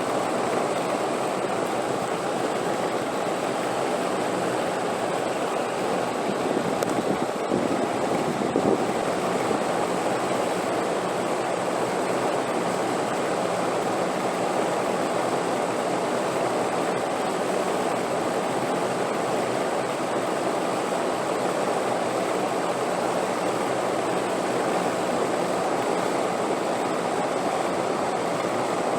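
Wind blowing as a steady, even rush with no gusts, swelling slightly about seven to nine seconds in.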